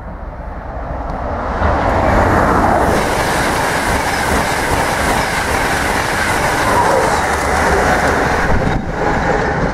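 Intercity express train passing through the station at speed: the rumble of wheels on rail and the rush of the train build over the first two seconds, then hold loud and steady.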